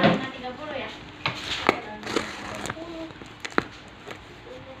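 Sharp clicks and knocks, about half a dozen, from a parcel being handled and opened, with faint voices in the background.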